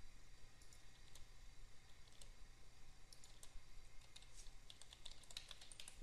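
Faint computer keyboard typing: irregular single keystrokes, coming thicker in the second half.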